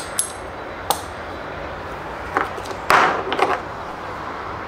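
Small metal motorcycle parts, a rearset footpeg with its bolt and washer, clinking as they are handled. There are a few sharp clicks with a high ring, then a short, louder rustling handling noise about three seconds in.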